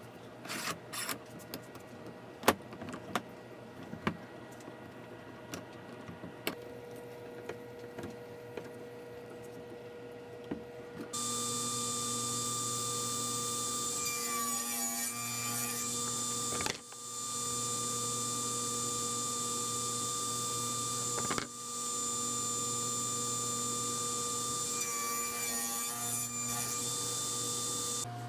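Light clicks and knocks of wood being handled, then about eleven seconds in an electric woodworking power tool starts and runs steadily, with a constant hum and hiss that dips briefly twice.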